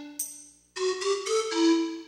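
Instrumental music: a bright, bell-like melody of struck notes in short phrases. It dies away briefly about three-quarters of a second in, then a new phrase begins.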